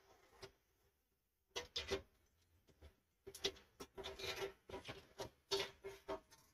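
Old heating coil rubbing and scraping against the stainless steel tub of a sterilizer as it is worked loose and lifted out, in several short bouts with a faint metallic ring.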